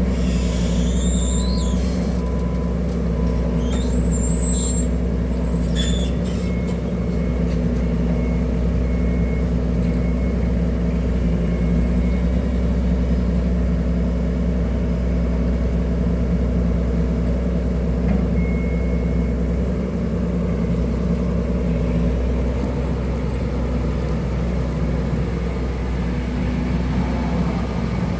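A diesel excavator's engine running steadily, with high squeaks in the first few seconds and a faint on-off beeping.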